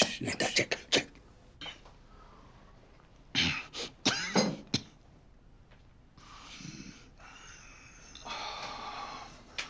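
An elderly man coughing in short, harsh bursts: a run of coughs at the start and another about three and a half seconds in, just after sipping a drink he was told to take slowly.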